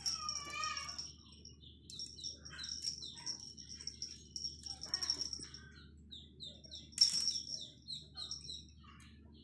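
Rapid high-pitched chirps, several a second, over a steady thin high whine. A kitten gives a short wavering mew near the start, and a sharp knock comes about seven seconds in.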